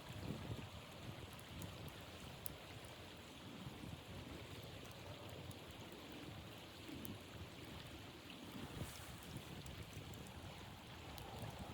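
Blizzard wind blowing steadily, with irregular low rumbles of gusts buffeting the microphone and a few faint ticks.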